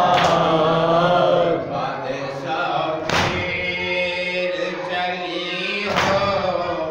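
A group of men chanting an Urdu noha (mourning lament) together, with a sharp unison slap about every three seconds, three times in all, as the mourners beat their chests in matam.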